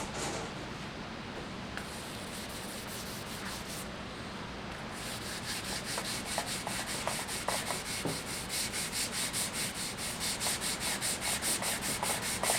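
Hand wet sanding of a cured finish on a wooden stave drum shell with 320-grit sandpaper wrapped on a rubber pad, a wet rubbing hiss. About five seconds in, the strokes become regular back-and-forth passes, several a second, and a little louder.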